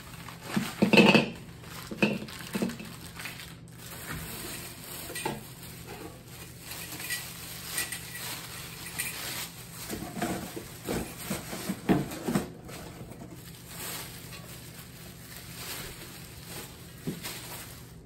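Plastic wrap and packing paper crinkling as they are pulled off a Saladmaster stainless steel wok, with knocks and clinks of the stainless lid and pan being handled. The loudest knocks come about a second in, and again in a cluster about ten to twelve seconds in.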